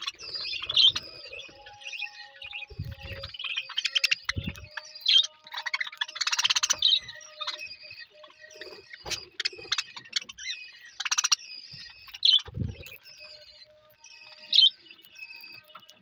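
A flock of budgerigars chattering and chirping continuously at close range while feeding, broken by a few sharp clicks and low thumps.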